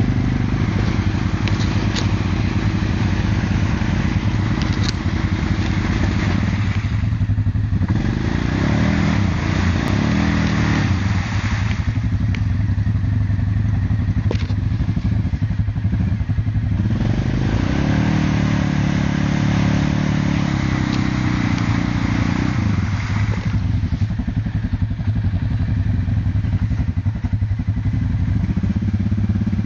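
Suzuki KingQuad ATV's single-cylinder four-stroke engine running under load as the quad churns through deep muddy water, the revs rising and falling several times.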